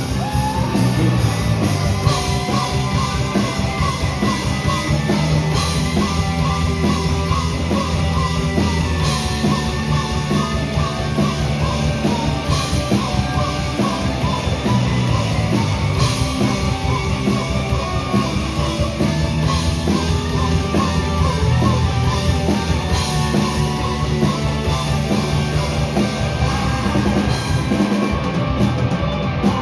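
Rock band playing live, loud and steady: drums and amplified instruments in a dense, continuous passage.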